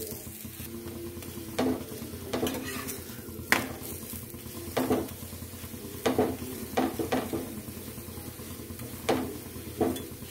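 Methi dhebra flatbread sizzling as it fries on a tawa, while a steel spatula taps and scrapes against the pan about nine times as it presses and turns the bread.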